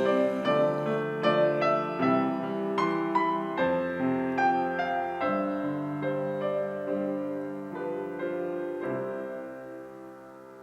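Piano music: a slow closing passage of struck notes and chords that ring and decay, ending on a held chord that fades away near the end.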